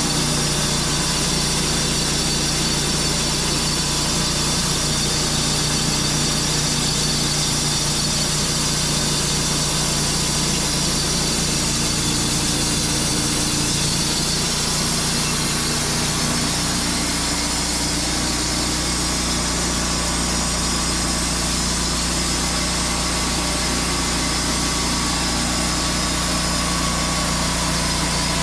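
Wood-Mizer LT35 bandsaw sawmill running steadily as its sawhead travels along a log. The engine note shifts slightly about two-thirds of the way through.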